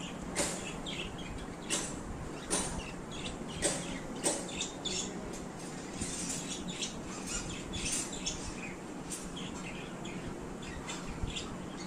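Pet birds chirping in many quick, short calls over a steady low background hum, with a few sharp clicks in the first few seconds.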